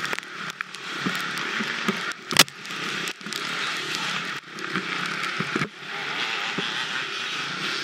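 Dirt bike being ridden off-road, engine and wind noise with a few brief dips, and one sharp knock about two and a half seconds in.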